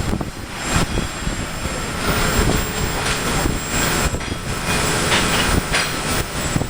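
Loud, steady rushing noise of steel-fabrication machinery on a factory floor, with a few knocks.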